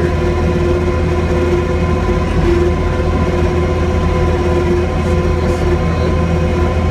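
Kubota SL75-2 compact track loader's diesel engine running steadily under load, a loud low drone with a steady whine over it, heard from inside the cab.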